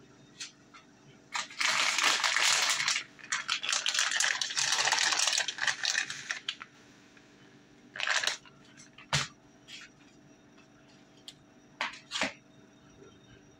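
A plastic bag of shredded cheese crinkling and rustling for several seconds as it is handled and shaken out, followed by a few short clicks and taps.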